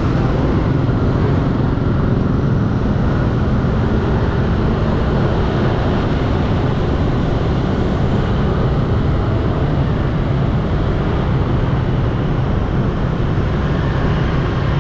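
Steady rumble of road noise and wind from riding a motor scooter at low speed through dense motorbike traffic, the rider's own engine and the surrounding scooters blended into one even drone.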